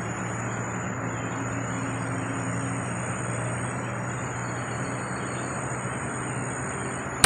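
Steady outdoor ambience: an even rushing noise with a steady low hum beneath and a high, steady insect-like drone above. At the very end it is cut by a single sharp crack, the shot of a .177 PCP air rifle.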